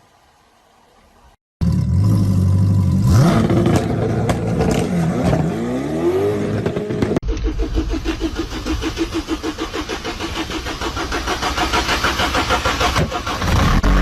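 Motor vehicle engine revving loudly, its pitch rising, starting suddenly about a second and a half in; after a cut about seven seconds in, another engine runs with a fast, even pulsing that grows louder toward the end.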